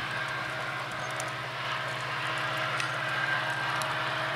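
Steady drone of a diesel train's locomotive engine as the train moves away.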